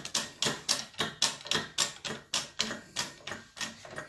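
Bottle jack of a hydraulic press being pumped by its lever handle: a quick, even run of metallic clicks, about four a second. The jack is building up pressure on the press toward about 1,800 to 2,000 pounds.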